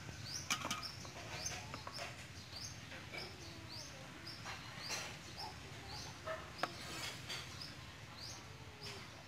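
A bird chirping over and over, about two short high calls a second, with a few sharp knocks of a cleaver on a wooden chopping board.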